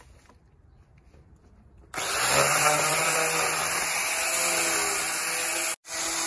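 Angle grinder with a rotary wood-carving attachment starting up about two seconds in and cutting into cedar: a loud steady whine whose pitch wavers as the cutter bites. It cuts out for an instant near the end and comes straight back.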